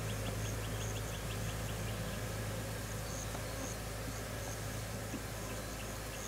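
Honeybees buzzing over the frames of an opened hive, a steady low hum. A fast, even ticking, about eight ticks a second, fades out in the first two seconds.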